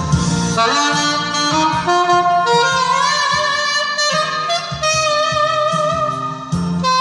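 Saxophone playing a slow melody of long held, wavering notes over a backing track with a steady bass line.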